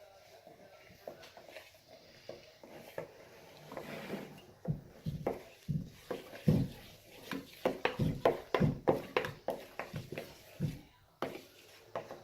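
A spoon stirring a sticky glue and shaving cream slime mixture in a bowl: irregular squelches and spoon knocks against the bowl, starting about four seconds in and going fast until near the end.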